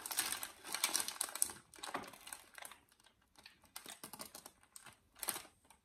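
Paper sandwich wrapper crinkling and rustling in the hands, densest over the first two seconds, then scattered crackles as the sandwich is lifted and bitten into, with a louder crackle near the end.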